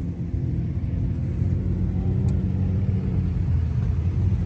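Off-road vehicle engines running steadily, a low rumble.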